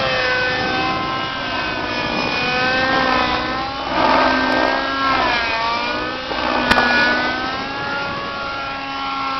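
Thunder Tiger Raptor radio-controlled helicopter flying aerobatics: its engine whine bends up and down in pitch as it moves about. A hoarse, wind-like rush from the main rotor blades changing pitch swells about four seconds in and again between five and six seconds, as it starts new manoeuvres.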